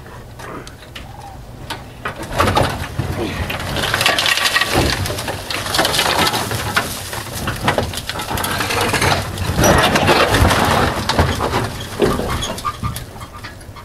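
Large rusted corrugated metal culvert being shoved off a pickup's flatbed: metal scraping, creaking and clattering as it slides over the bed and the scrap beneath it. The noise is loudest near the end, as the culvert tips over the side.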